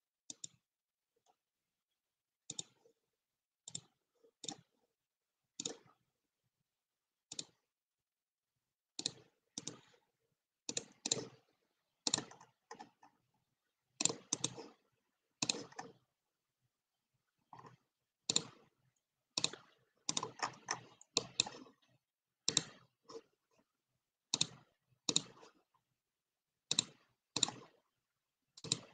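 Computer mouse clicking: irregular single clicks and quick runs of clicks, thicker in the second half.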